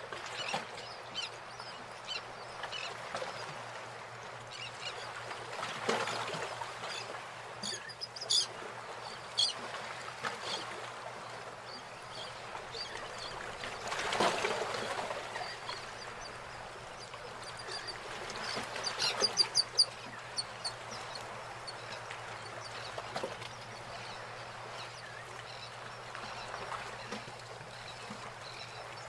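Outdoor ambience: a steady background hiss with scattered bird calls, including a quick run of calls about nineteen seconds in.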